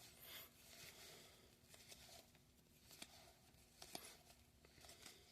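Near silence, with a few faint soft clicks and rustles of trading cards being handled and flipped through.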